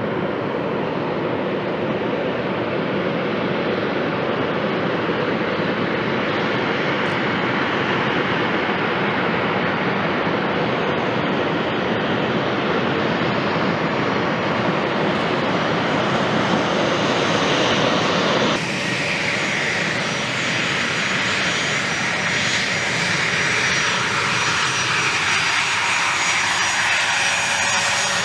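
Twin General Electric TF34 turbofan engines of A-10 Thunderbolt II attack jets running at taxi power: a steady jet rush that grows slightly louder as the aircraft approach. About two-thirds of the way through, the sound changes abruptly to a closer, brighter turbine whine with high steady tones.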